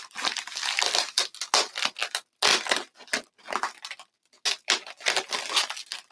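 Packing paper crinkling and rustling in quick, irregular bursts as a wrapped item is unwrapped by hand.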